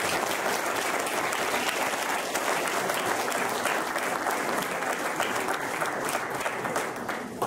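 Audience applauding: dense, even clapping from many hands that dies away near the end.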